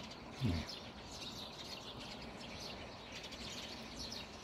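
Small birds chirping faintly and repeatedly over a steady outdoor background hiss. A brief low sound, rising in pitch, comes about half a second in.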